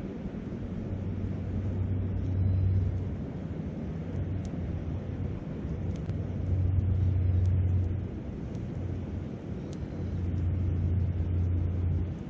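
Wind gusting on the microphone, a low rumble that swells three times, over the steady rush of a river. A few faint sharp pops from a wood campfire.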